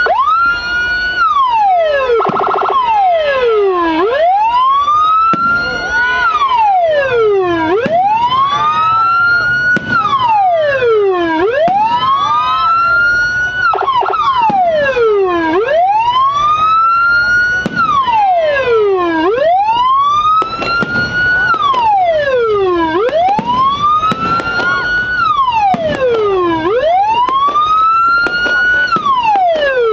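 Patwal police-escort electronic siren, a multi-tone siren module through a TOA 10–15 watt horn speaker, sounding a slow wail that rises and falls about every three and a half seconds. Right at the start it switches over from a fast yelp.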